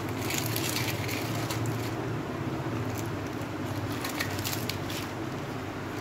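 Light crackling, rustling handling noise in two short spells, about the first second and a half and again from about three seconds in, over a steady low hum.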